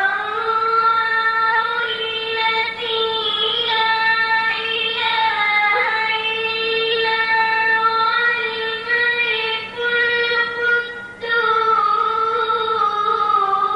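A boy's high voice reciting the Quran in a melodic chant: one long unbroken phrase of held notes with small ornamental turns in pitch.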